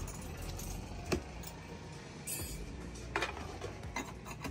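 A few sharp metallic clinks and knocks as steel burner parts are handled on a glass-top gas stove, over faint background music.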